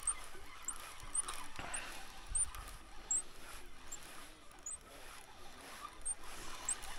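Thin, high chirps, likely from a small bird, repeated about every half second over faint outdoor background noise, with a few soft knocks.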